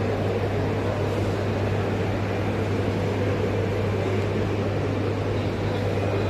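Steady low mechanical hum with a constant hiss over it, like machinery running in a large hall, holding level with no breaks.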